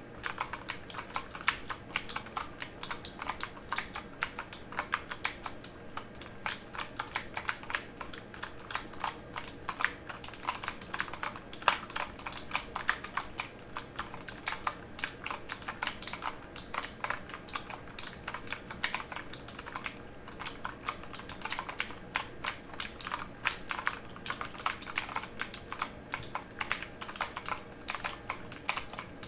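Fingers typing on a mechanical keyboard: quick, irregular key clicks, several a second with small gaps, continuing throughout.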